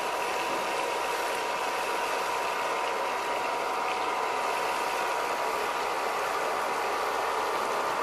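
Homemade vacuum cleaner running steadily, its small motor and fan giving a whine over rushing air as the nozzle sucks up polystyrene beads.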